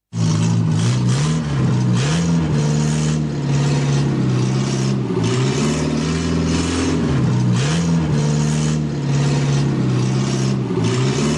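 Small car engine sound effect running steadily, its pitch dipping and rising again several times as if it is easing off and revving, with a light rhythmic chuffing on top.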